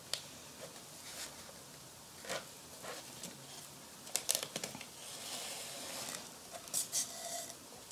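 Quiet rustling and a few short scratchy swishes of hands working through a wig's hair while stitching it by hand, with a cluster of quick swishes about four seconds in and another near the end.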